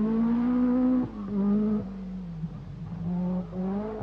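Group B rally car engine at high revs. The note breaks off about a second in, then comes back lower and dips and rises again.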